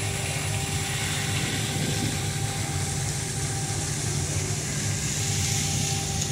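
Steady low rumble and constant hum of a large ship's engines under way, with wind hissing across the microphone.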